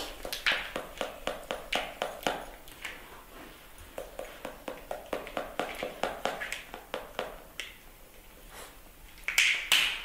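Rhythmic wet clicking and smacking, about four a second, of a young pet sucking milk from a feeding bottle, easing off after about seven seconds and followed by a few louder smacks near the end.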